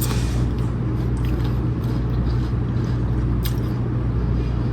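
A steady low mechanical hum, with a few brief faint clicks or crunches over it.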